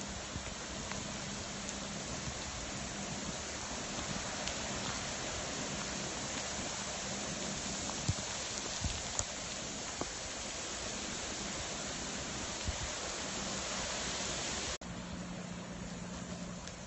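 Steady hiss of hurricane rain and wind, with a few sharp taps. Near the end it drops suddenly to a quieter, duller rain hiss.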